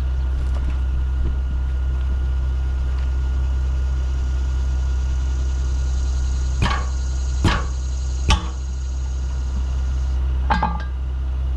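Four sharp hammer strikes, three about a second apart and then one more after a short pause, as the tire's bead is broken off the wheel rim, over a steady low hum.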